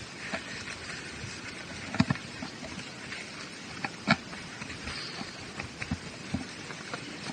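Running footsteps on a wet, muddy trail: uneven footfalls and splats over a steady hiss, with two sharper thuds about two and four seconds in.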